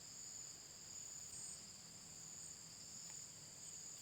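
Faint, steady, high-pitched chorus of insects trilling without a break.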